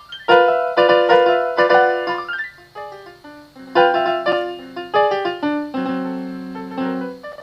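Solo piano playing an instrumental piece: a series of struck chords that ring and fade, then a low chord held for about a second near the end.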